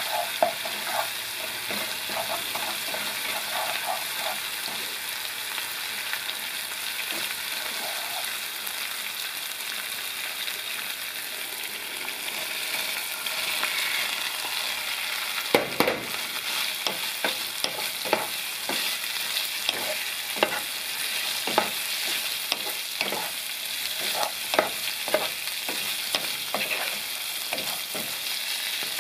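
Chili paste of hot pepper, lemongrass, garlic, ginger and onion sizzling in oil in a nonstick pot, stirred with a wooden spatula, then stirred together with pieces of squirrel meat. Under the steady sizzle the spatula scrapes and knocks against the pot, more often and more sharply from about halfway.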